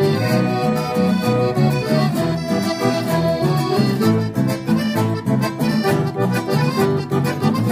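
Piano accordion playing a tune with a steadily strummed acoustic guitar accompanying it.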